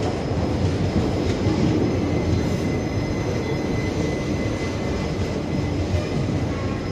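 Maharashtra Express passenger coaches rolling past the platform: a steady low rumble of wheels on the rails, with a faint high wheel squeal.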